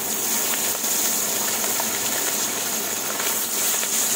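Pabda fish sizzling as they shallow-fry in hot mustard oil in a kadai: a steady hiss with small crackles.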